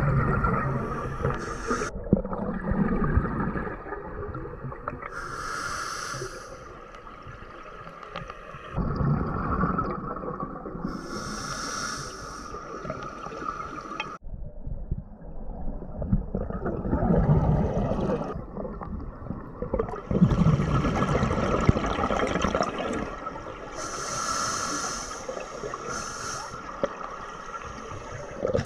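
A scuba diver breathing through a regulator underwater: hissing inhalations alternating with gurgling bursts of exhaled bubbles, in slow cycles of about five seconds.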